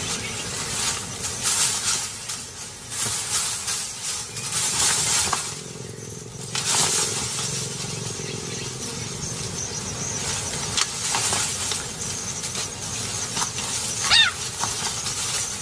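Dry grass rustling in waves that rise and fall, with one short, high chirp from a cheetah cub near the end.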